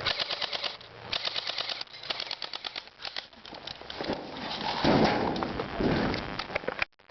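Electric airsoft guns firing full-auto, rapid bursts of about a dozen shots a second, three bursts within the first three seconds. A louder, lower rush of noise follows around five to six seconds in.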